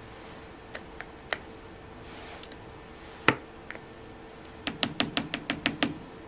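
Plastic ladle tapping and knocking against clear plastic soap molds while thick cold-process olive-oil soap batter is scooped in and pressed down: a few light taps, one louder knock about three seconds in, then a quick run of about ten taps near the end.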